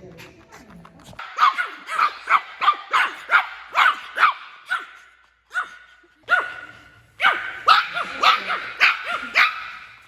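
Small dog barking in quick, high-pitched yaps, about three a second, with a short pause in the middle before it starts again.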